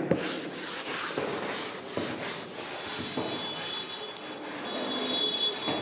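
Handheld chalkboard duster wiping chalk off a chalkboard: a dry rubbing sound in repeated uneven strokes.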